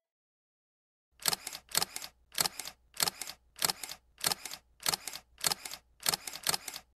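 Camera shutter clicks repeating in a steady series, a little under two a second, each a quick double click. The series starts about a second in.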